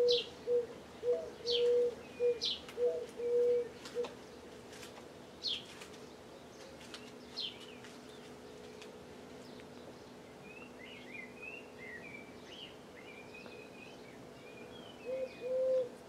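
Red-rumped swallows calling from a mud nest: short high chirps that drop in pitch, scattered through the first half, then a soft twittering chatter toward the end. Under them, another bird's low hooting notes repeat about two a second for the first four seconds and again near the end.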